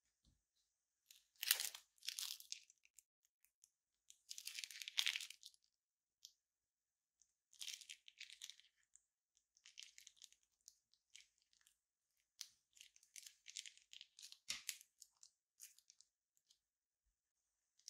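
Clear slime squeezed out of a plastic piping bag: quiet bursts of crinkling and sticky crackling as the bag is pressed, with a short knock late on.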